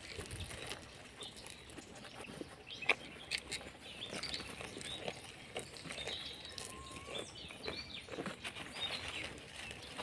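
Goats and sheep feeding and stepping among dry leaves and gravel close by, making scattered small clicks and rustles, with birds chirping.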